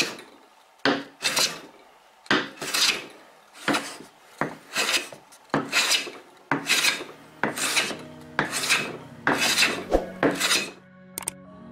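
Wooden coffin smoother planing hardwood in quick repeated strokes, each a short swish of the iron taking a shaving, about one or two a second; the later strokes are on iroko. These are test cuts with the freshly tuned plane. The strokes stop shortly before the end.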